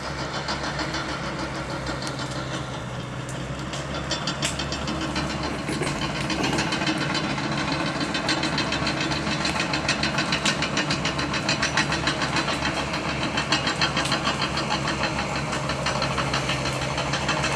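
Bulldozer's diesel engine running steadily with a rhythmic clatter.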